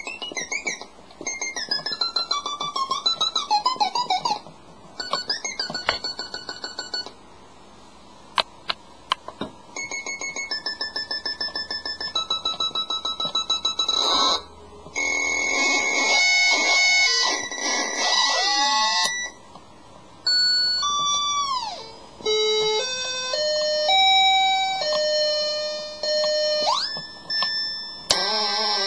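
Circuit-bent toy cake keyboard with oscillator injection playing glitchy electronic beeps: warbling and stepping tones, a stretch of rapid even pulsing around the middle, and pitches that fall steeply and later shoot up.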